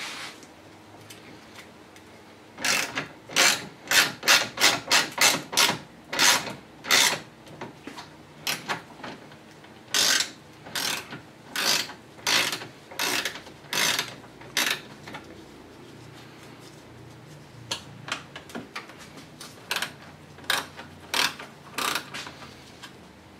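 Hand socket ratchet clicking as bolts are backed out. It comes in runs of quick strokes: a fast run of about two a second early on, then slower runs with pauses between.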